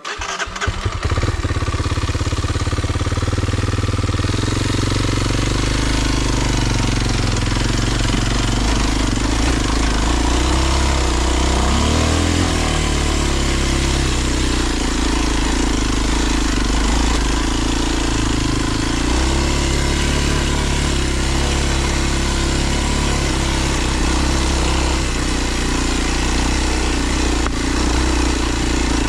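Kawasaki KLX 230's single-cylinder four-stroke engine catching right at the start after a stall, then running steadily with a few changes in pitch, around 12 and 19 seconds in.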